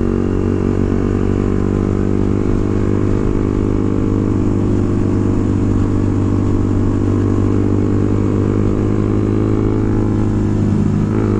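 A small single-cylinder motorcycle engine running at a steady cruise while riding, its pitch shifting slightly near the end.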